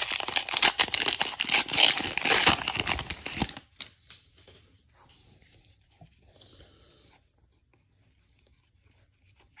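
Foil wrapper of a 2021 Panini Mosaic baseball card pack being torn open and crinkled, loud and crackling for about three and a half seconds. After that, only faint soft rustles of the cards being handled.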